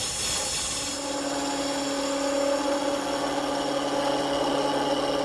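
Wood lathe running with a spindle gouge cutting the spinning bat blank, rounding over its knob: a steady hum with the hiss of the cut, its tone settling in about a second in.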